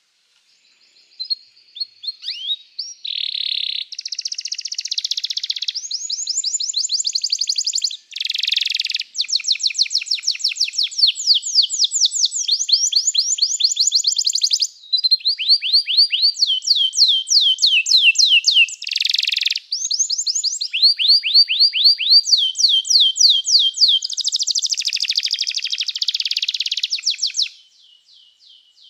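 Domestic canary singing a long, unbroken song of rapid high trills, switching from one trill phrase to the next every second or two, going quiet near the end.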